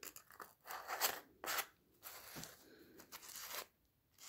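Foam packing peanuts and plastic bags crunching and rustling as a hand digs through a packed box, in several short bursts.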